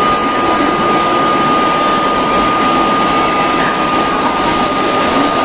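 653 series electric train pulling out of the station, a steady rushing run-out noise with a thin, constant high tone held over it.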